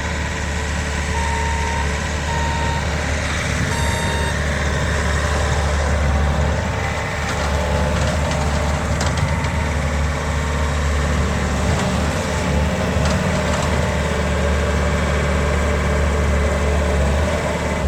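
2020 Bobcat S550 skid steer loader's diesel engine running steadily, with three short beeps of its backup alarm in the first few seconds.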